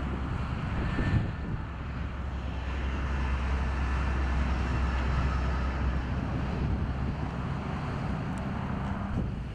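Wind rushing over the microphone with a low rumble that swells about midway and eases off.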